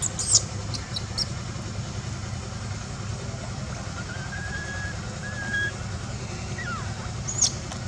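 Steady low outdoor rumble with a few brief, high-pitched squeaks: a pair about a second in and one near the end, plus faint thin calls in the middle.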